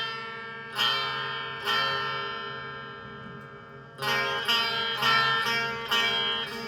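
Instrumental music of bright, plucked-sounding chords. Two chords ring out and slowly fade, then a quicker run of chords starts about four seconds in.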